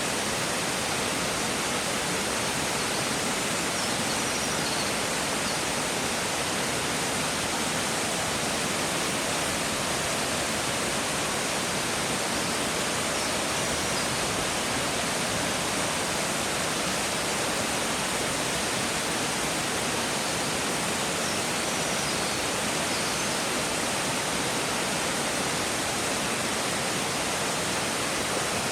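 Waterfall: a steady, even rush of falling water that never changes in level. A few faint high chirps, likely birds, sound now and then behind it.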